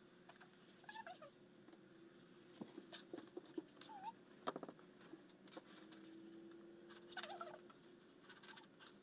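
Faint short animal calls that rise and fall in pitch, a few seconds apart, over light rustling and a few small knocks, the sharpest about four and a half seconds in.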